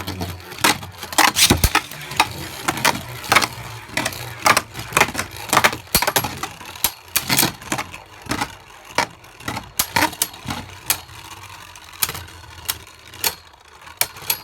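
Plastic Beyblade spinning tops, Hydra Poseidon against Devastate Belfyre, clashing in a Beystadium. The hits come as a rapid run of sharp clicks and clacks that thin out toward the end.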